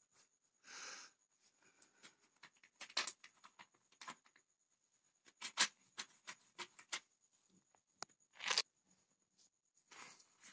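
A cat pawing and scrabbling at the edge of a quilt on a hard floor: scattered light scuffs and clicks, with a brief rustle near the start and a few sharper ticks later. A faint steady high whine runs underneath.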